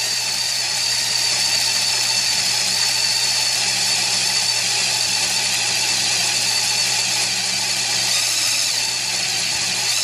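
Cordless drill running steadily at low speed with a constant motor whine, its twist bit boring into inch-thick steel with cutting fluid. The bit is cutting properly and throwing off chips rather than just making heat.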